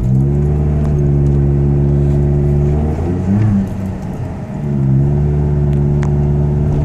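Exhaust of a 2010 Ford Ranger pickup with a Flowmaster 40 series muffler, heard from inside the cab with the window down while driving. It gives a steady deep drone that drops away briefly about three seconds in, then comes back at the same pitch.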